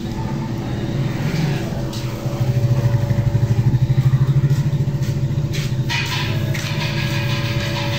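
Cobbler's shoe-finishing machine motor running with a steady pulsing hum, louder for about two seconds in the middle.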